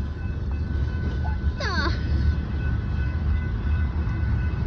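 Freight train of tank cars rolling past, its wheels on the rails making a steady low rumble with a faint steady high ring over it.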